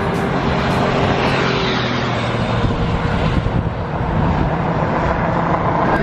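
A vehicle running steadily: a low hum under a continuous rushing noise.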